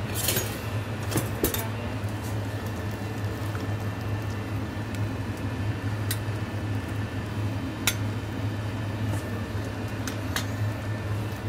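Scattered light clinks and taps of utensils, pans and a plate on a stainless-steel counter while a dish is plated. Under them runs a steady low hum of kitchen equipment.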